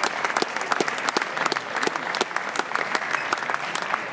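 Spectators applauding with a steady patter of handclaps, greeting the end of a table tennis match.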